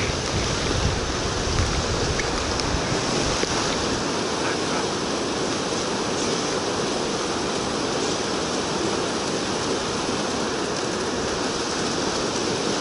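Steady rushing noise of rain and wind, with wind buffeting the microphone as a low rumble for the first few seconds.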